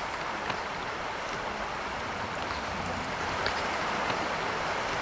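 Steady rushing of a shallow river running over stones, with a few faint clicks.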